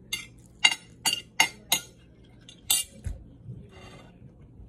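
A metal fork clinking against a plate: about seven short, sharp clicks over the first three seconds.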